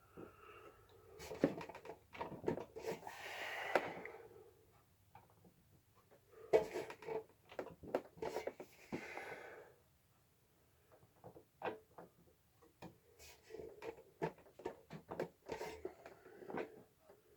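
Scattered light clicks and knocks of small tools and parts being handled on a workbench, with two brief scraping sounds, about three seconds in and again near nine seconds.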